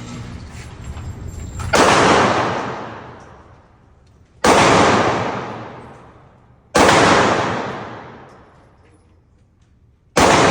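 Handgun fired four times, a few seconds apart. Each shot is sharp and echoes, dying away over about two seconds, and the last comes near the end.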